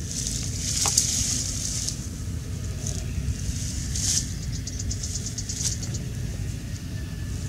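Steady low rumble of wind buffeting the microphone, with short bursts of high hiss and a quick run of ticks, about ten a second, around the middle.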